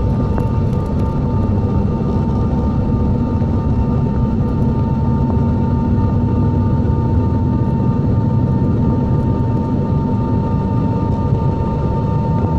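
Cabin noise of a Bombardier CRJ-700 taxiing, heard from a window seat over the wing: the rear-mounted GE CF34 turbofans run steadily at low power, a low rumble with a steady high tone over it.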